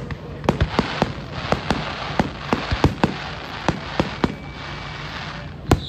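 Aerial fireworks shells bursting: a rapid, irregular run of sharp bangs, several a second, over a steady hiss. The loudest bang comes near the end.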